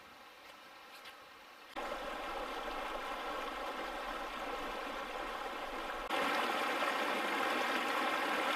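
A shallow mountain stream running over rocks. After a quiet start it comes in suddenly about two seconds in, then steps up louder at about six seconds.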